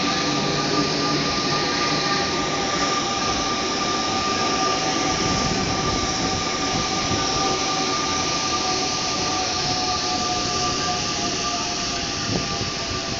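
Rubber-tyred Paris Métro MP89CC train at the platform, with a steady high electrical whine over a loud, even rumble.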